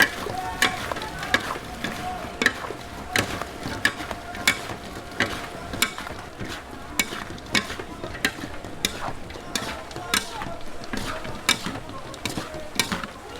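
Dakgangjeong being stirred in a pan: a utensil knocks against the pan at a steady pace, about three knocks every two seconds, over a continuous sizzling hiss.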